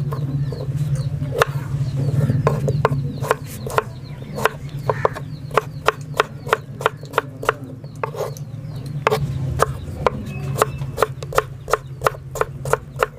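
A kitchen knife chopping raw potato on a wooden cutting board: a quick run of sharp knocks, a few a second, as the blade strikes the board through the potato. A steady low hum runs underneath.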